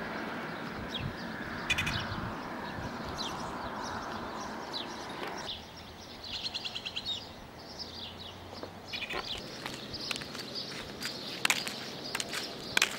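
Birds calling: short high chirps over a steady rushing background that cuts off about five and a half seconds in. Then comes a quick trill of high notes, followed by scattered sharp clicks and chirps.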